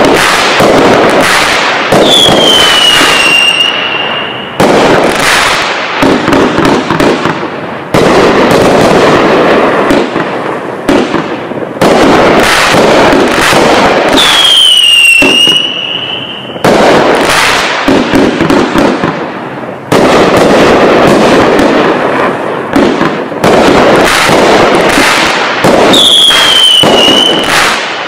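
Sky King 'Operation Overload' 30-shot, 500 g firework cake firing: shot after shot bangs in quick succession, each followed by the crackle of bursting gold stars. A falling whistle sounds three times: about two seconds in, about halfway, and near the end.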